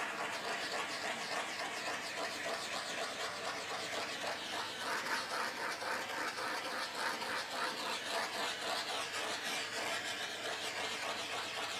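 Small handheld torch flame hissing steadily, with a slight wavering, as it is passed over wet acrylic paint to pop air bubbles.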